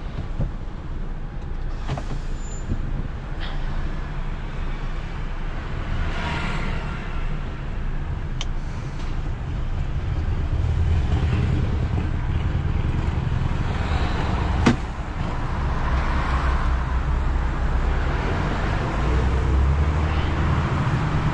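Heavy recovery truck's diesel engine and road noise heard from inside the cab, a steady low rumble as it tows a loaded 26-tonne dustcart through slow city traffic. A single sharp click comes about two-thirds of the way through.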